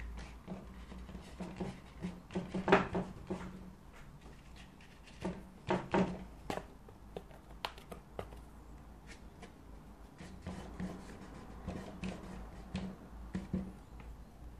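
Light clicks and knocks of a paintbrush and painting gear being handled, as when a brush is worked in a palette or water pot. There is a louder clatter about three seconds in and another around six seconds.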